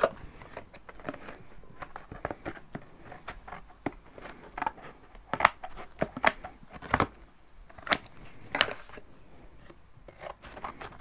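Scissors cutting through cardboard: a string of sharp, irregular snips, most of them in the second half.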